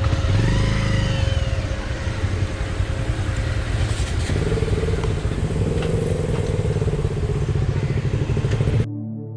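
Motorcycle engine running slowly while the bike is being brought in to park. Near the end it cuts off abruptly to ambient background music.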